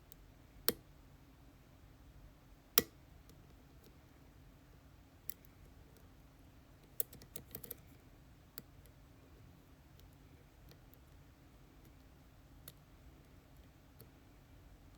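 Scattered sharp clicks from a lock cylinder and the small tools handling it. The two loudest come in the first three seconds, followed by a quick run of clicks about seven seconds in and a few fainter ticks after.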